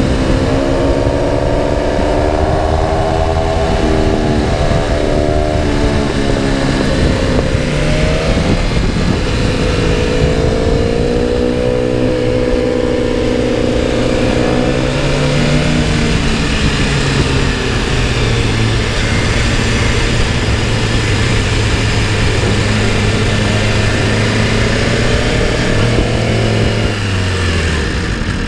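BMW S1000RR inline-four engine heard from on board at speed, its note rising and falling repeatedly as the throttle is opened and closed, over a steady rush of wind. Near the end the engine note drops sharply.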